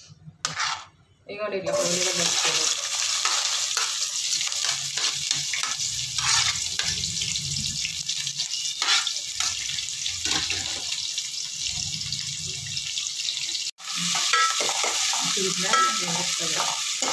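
Chopped onions sizzling in hot oil in a steel pot, starting suddenly about a second and a half in, with a ladle scraping the pot as they are stirred. The sound cuts out for an instant near the end.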